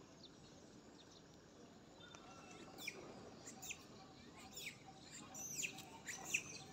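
A run of short, high chirping calls, each falling quickly in pitch, beginning about a third of the way in and coming faster and louder toward the end, over a faint outdoor background.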